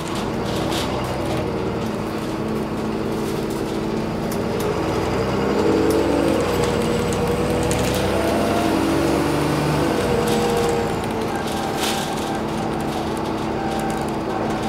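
Alexander Dennis Enviro400 double-decker bus running along the road, heard from inside the passenger saloon. The engine note climbs and shifts through the middle as the bus gathers speed, with occasional rattles from the body and fittings.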